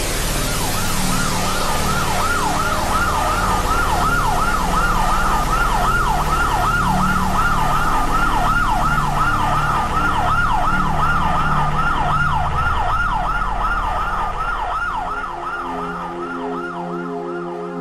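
A siren in fast yelp mode, its pitch sweeping up and down about three times a second over a steady low rumble. It fades out near the end as a soft sustained chord comes in.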